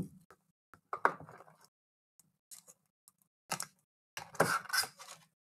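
Hands handling and opening a cardboard trading-card hobby box: a few short taps, scrapes and rustles of cardboard and card packs, with brief pauses between them.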